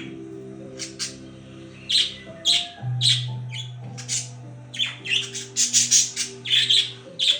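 Pet budgerigars chirping and squawking in quick short calls, growing busier and louder about five seconds in, over background music with long held notes.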